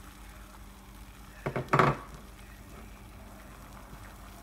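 Eggs and spinach frying faintly in a nonstick pan. A short clatter of kitchenware, two quick knocks with a brief ring, comes about a second and a half in.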